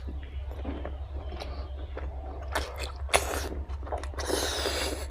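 Close-up mouth sounds of someone chewing and biting into fried pork and rice: wet chewing with irregular sharp clicks and crunches, and a louder smack about three seconds in.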